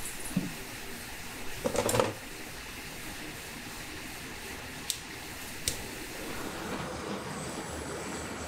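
A clatter about two seconds in, then an aerosol can spraying onto a horse's hoof, two sharp clicks, and a handheld gas torch's flame hissing against the hoof sole toward the end.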